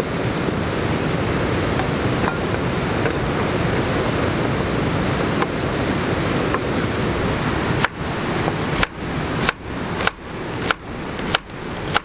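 Steady rushing background noise. From about two-thirds of the way in, a kitchen knife chops on a plastic cutting board, with about seven sharp knocks a little over half a second apart.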